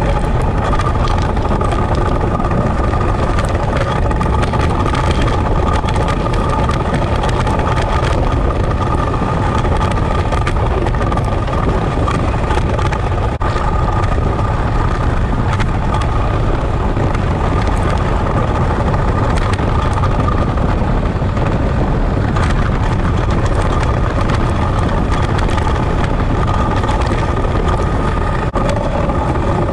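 Ice boat's steel runners sliding fast over lake ice: a loud, steady rushing rumble with a faint steady hum and scattered small knocks as the runners cross bumps and cracks, mixed with wind noise.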